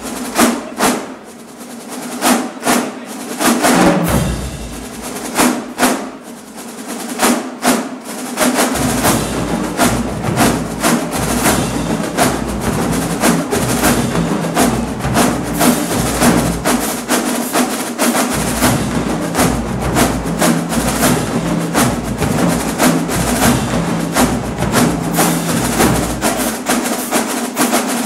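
Marching-band drumline playing a drum cadence on snare and bass drums. Scattered accented hits with short gaps for the first several seconds, then a steady, dense groove with the bass drums pounding throughout from about nine seconds in.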